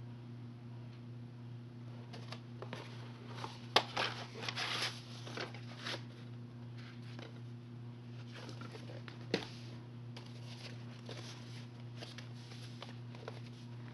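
VHS tapes and their cases being handled: a sharp plastic click about four seconds in, then a couple of seconds of rustling and scraping, and another click a little past nine seconds. A steady low electrical hum runs underneath.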